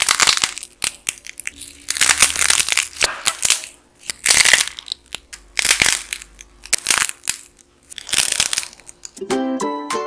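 Dried modelling clay shaped like churros being squeezed and torn apart by hand, its dry crust cracking and crunching in repeated bursts of about a second each. Near the end a plucked-string music intro comes in.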